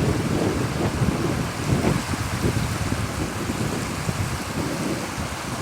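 Strong wind buffeting the microphone: a steady rush with uneven low gusts throughout.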